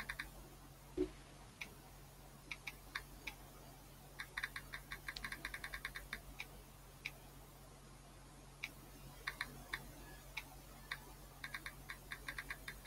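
Quiet typing on a computer keyboard: short bursts of rapid key clicks with pauses between, the longest run about four seconds in and another near the end.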